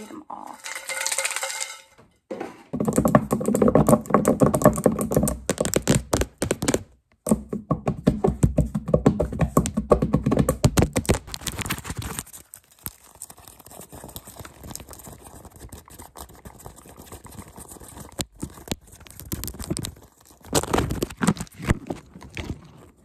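Fast ASMR tapping and scratching with fingernails right on the microphone or camera, a rapid run of close clicky strokes. It turns quieter and sparse about halfway, then picks up again near the end.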